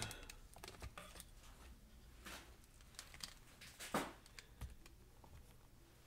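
Faint handling noise: light clicks, taps and rustling as hands move and press a Chromebook motherboard on its metal chassis, with the loudest scrape-click about four seconds in.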